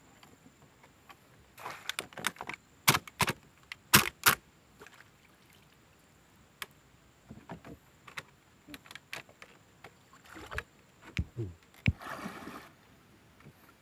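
Wooden boat loaded with bamboo fish traps being moved through swamp water. A run of sharp knocks and clatters comes a couple of seconds in, loudest around four seconds, followed by scattered lighter knocks. A short splashing rush near the end comes from someone wading alongside.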